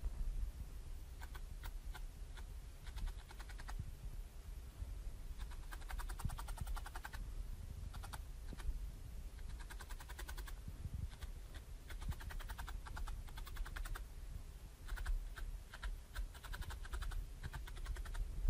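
Felting needle stabbing wool fibres into a foam mat: runs of fast, light ticks with short pauses between them.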